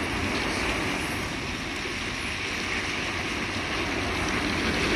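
Heavy diesel machinery running steadily: a low engine rumble under an even hiss, growing a little louder near the end.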